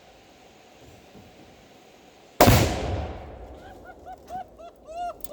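A single large explosion about two seconds in as an explosive charge blows up a dishwasher and freezer: a sharp blast with a rumbling tail of about a second. It is followed by a quick run of short, rising-and-falling yelping calls.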